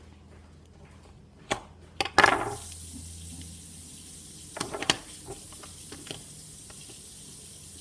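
Sharp little clicks and knocks from small plastic fidget-cube parts being handled. About two seconds in comes a loud burst of rushing noise that fades quickly and leaves a steady high hiss, and a few more clicks come later.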